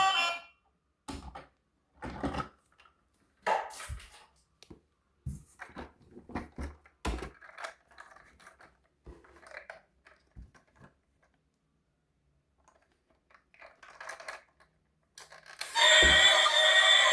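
Scattered light knocks and clatters of plastic toy vehicles being handled, irregular and separated by quiet gaps. Music cuts off just after the start and comes back near the end.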